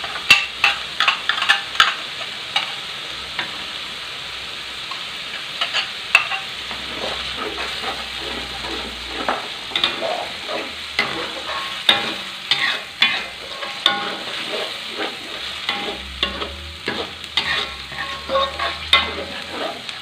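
A metal spatula scrapes and knocks irregularly against a metal wok while blended spice paste and dried chilli paste fry in oil with a steady sizzle. The chilli paste is being cooked out in the oil.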